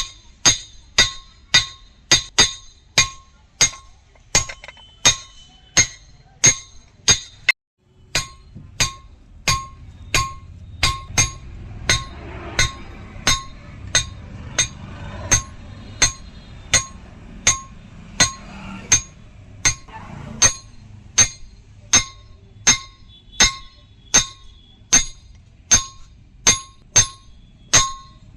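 Hammer blows on steel at an anvil, about two a second, each one ringing, as a tractor leaf spring is forged into an axe. The blows break off briefly about a quarter of the way in, then go on over a low hum.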